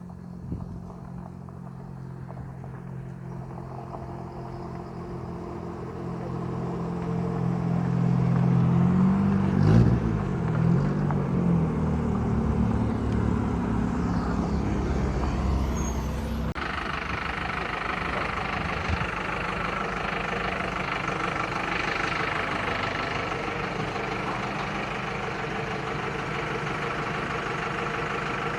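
Motor vehicle driving: the engine grows louder over the first several seconds and wavers in pitch about ten seconds in. About sixteen seconds in the sound changes abruptly to a steady hiss of road and engine noise.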